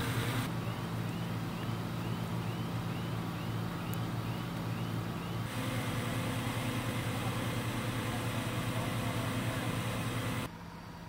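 Steady low drone of idling engines, the running of the fire apparatus and rescue-tool power unit, changing abruptly at cuts and dropping suddenly near the end. For the first few seconds a faint, short, high rising chirp repeats about twice a second.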